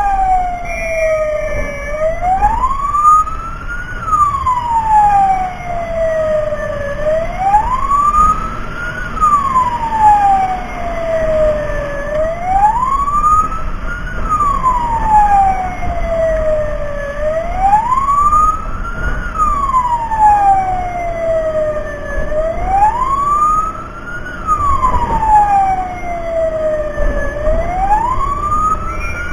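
Fire-rescue truck siren wailing, its pitch rising quickly and falling more slowly about once every five seconds, over a low rumble of vehicle and road noise.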